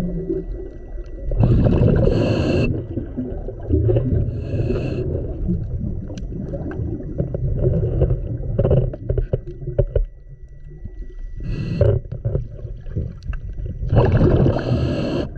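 Scuba diver's regulator breathing heard underwater through a camera housing: a hissing inhalation every few seconds, with a low bubbling rumble of exhaled air between.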